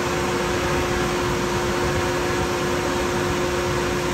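Steady mechanical whir with a constant hum, running evenly.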